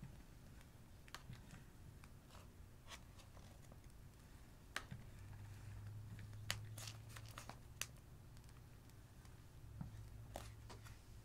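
Faint, scattered crinkles and clicks of a plastic piping bag being squeezed as shaving cream is piped out, over a low steady hum.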